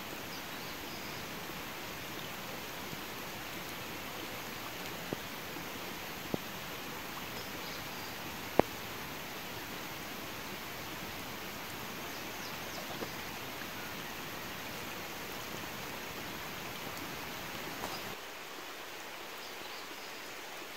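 Steady rain falling on the standing water of a flooded rice paddy, an even hiss. A few sharp ticks stand out, the loudest about a third of the way through.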